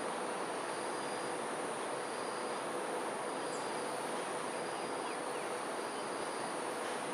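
Insects droning in a steady high trill over an even background rush, with a fainter, lower note that comes and goes every second or so.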